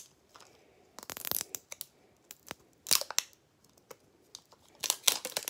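Plastic wrapping on a mini-brands surprise ball being torn and crinkled by hand, in short crackling bursts about a second in, around three seconds in, and again near the end.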